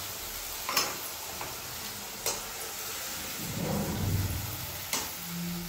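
Ground onion, tomato, garlic and chili paste sizzling in hot mustard oil in a steel kadhai, stirred with a metal slotted spatula that knocks sharply against the pan three times.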